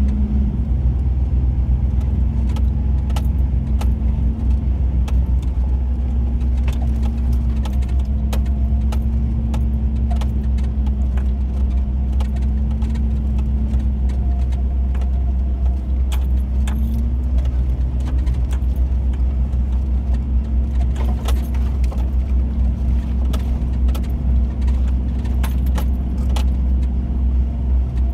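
Chevrolet S-10 Blazer ZR2 driving along a trail, its engine running with a steady drone whose pitch dips and rises a few times, over a heavy low rumble, with frequent small rattles and clicks from the truck.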